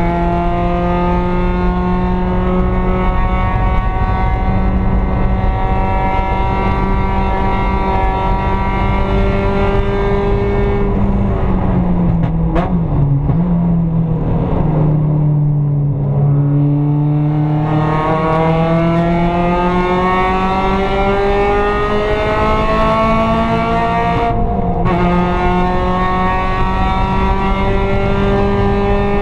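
Mazda Miata race car's four-cylinder engine at racing revs, rising slowly as it pulls through a gear. About a third of the way in the revs fall in steps as it brakes and downshifts, then build steadily again, with a sharp drop for a quick upshift near the end before climbing once more.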